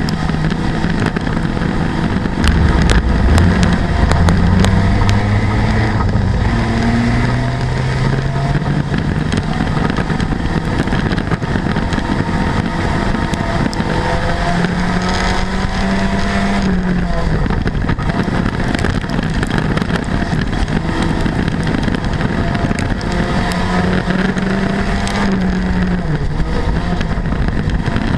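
Front-wheel-drive street stock race car's engine heard from inside the cockpit, running continuously over loud road and wind noise. Its pitch climbs slowly over several seconds early on, then rises and falls again as the throttle is worked.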